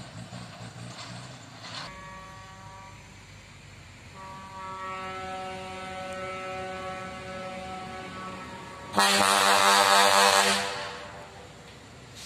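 Heavy truck engine rumbling low for about two seconds, then a truck air horn: long steady held tones that grow louder from about four seconds, then a much louder horn blast about nine seconds in, lasting under two seconds.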